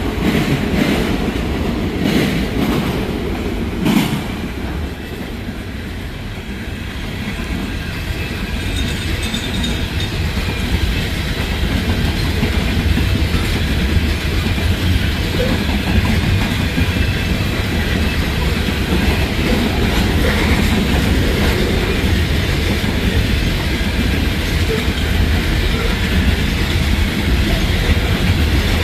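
Freight train rolling past, its car wheels clicking over rail joints. The sound eases slightly about five seconds in, then a deep low rumble builds and stays loud.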